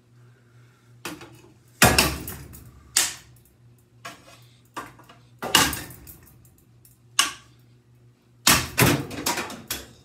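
Spinning ceiling fan blades striking a handheld tool held up into them: a string of sharp whacks and clatters at uneven intervals, the loudest about two seconds in and a quick run of hits near the end. A low steady hum lies underneath.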